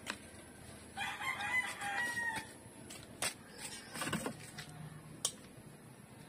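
A rooster crows once, about a second in, a call lasting over a second. Afterwards come a few sharp knocks from a steel cooking pot being carried and set down on a wooden table.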